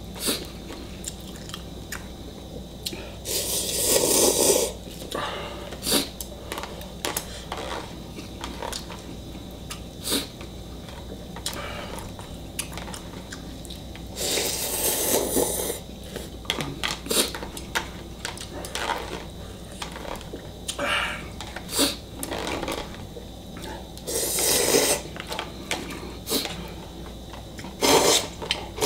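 A person slurping instant ramen noodles and broth from a bowl held to the mouth, with four long loud slurps: about three seconds in, about halfway, near the end, and right at the end. Short clicks of chopsticks against the bowl come between them.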